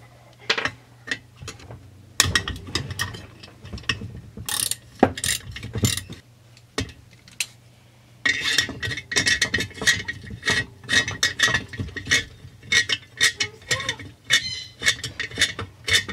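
Ratchet wrench clicking in quick runs as it backs out the chainsaw's muffler bolts, with clinks of metal tools and parts. There is a short lull before the densest clicking in the second half.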